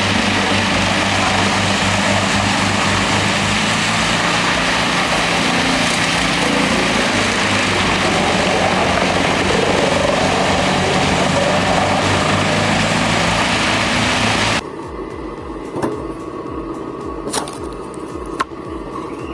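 Large mobile wood chipper running hard and feeding wood, its engine and cutting drum sounding together as a loud, steady machine din whose pitch wavers under load. The sound cuts off suddenly near the end and gives way to a quieter stretch with a few sharp cracks.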